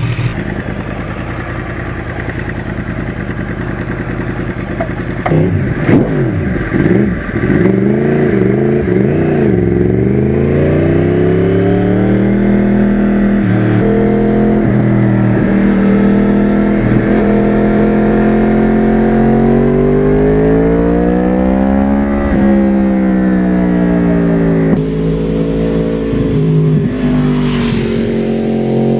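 2009 Yamaha R1's crossplane-crank inline-four with an aftermarket exhaust idling, then revved a few times about five seconds in before pulling away and accelerating up through the gears. The pitch climbs and drops back at each shift, with the longest pull near the end.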